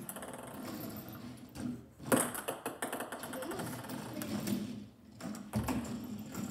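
Foosball table in fast play with a ping pong ball: rods sliding and spinning, plastic players and the light ball clacking in a rapid, uneven clatter. There is a sharp loud hit just after two seconds, and short lulls about two and five seconds in.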